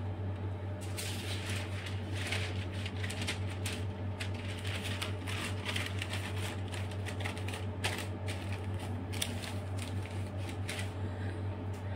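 Quick irregular clicks, taps and rustles of hands handling small fondant decorations and placing them on a cake, starting about a second in and dying away near the end, over a steady low hum.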